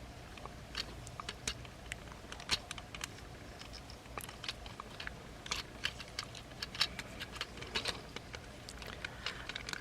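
Plastic parts of a transforming Transformers figure being handled and pegged together: a run of small, irregular clicks and taps.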